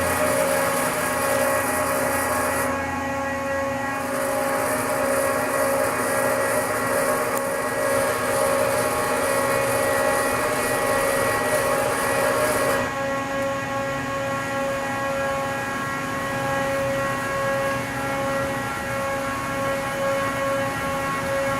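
Charmilles Roboform 55 CNC sinker EDM running under power: a steady machine hum and whine with several fixed tones over a hiss, the hiss shifting a few times, around three, four and thirteen seconds in.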